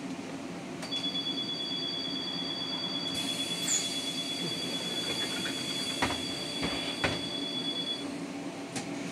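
Škoda 32Tr SOR trolleybus heard from inside: a steady low hum with a high steady whine that starts about a second in and stops near the end, and a few sharp clicks in the second half.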